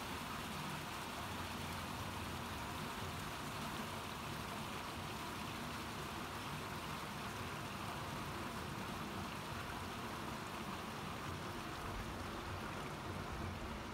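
Steady outdoor background noise: an even hiss with a low rumble underneath, with no distinct events.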